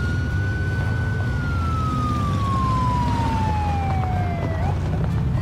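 A police siren winding down in one long falling tone that breaks off about four and a half seconds in, over the low rumble of a vehicle.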